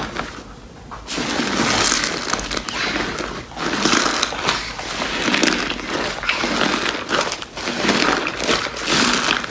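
Slime being squeezed and pressed by hand, giving a dense run of small crackles and pops that swells and fades in waves, starting about a second in.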